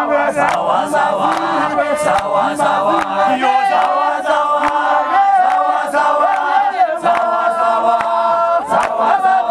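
A crowd singing and chanting together in unison, many voices holding sustained notes, with handclaps throughout.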